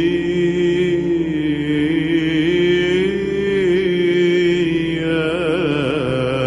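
A man singing a long, drawn-out note of a Romanian Orthodox spiritual song (pricesne) in a chant-like style. Near the end the note wavers up and down in pitch.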